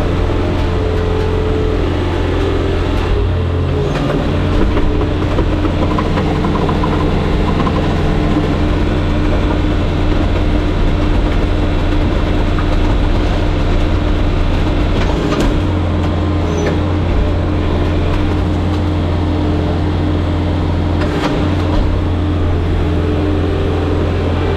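Bobcat skid steer's diesel engine running steadily, with a couple of faint knocks partway through.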